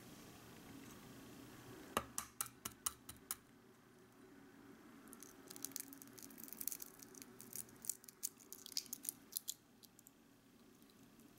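A quail egg tapped sharply about seven times in quick succession, then its thin shell crackling and snapping in small irregular clicks as fingers pick it open.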